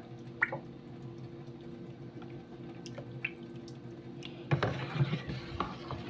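Thick homemade liquid laundry soap dripping and pouring from a plastic cup back into a tub, with scattered single drips. About four and a half seconds in, the cup dips into the mixture with a brief sloshing splash.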